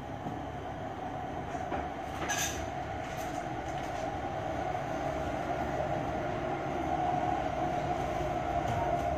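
Steady mechanical hum over a low rumble, slowly growing louder, with a brief hiss about two and a half seconds in.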